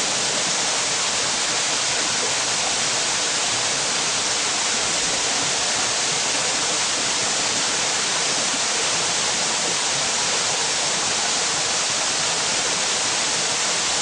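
Narrow waterfall falling steadily onto rocks: an even, unbroken rush of water, brighter in the treble than in the bass.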